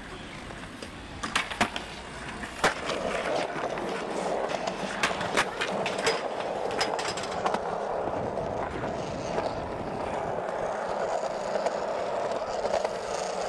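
Skateboard wheels rolling on concrete: a steady grinding roar that builds about three seconds in and carries on, with several sharp clacks of the board.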